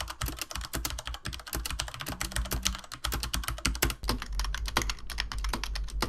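Fast typing on a gaming keyboard: a dense, uneven run of key clicks.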